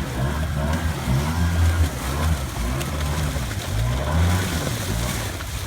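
Arctic Cat Wildcat Sport side-by-side's engine revving up and down, its pitch rising and falling every second or so, as it is driven through deep water.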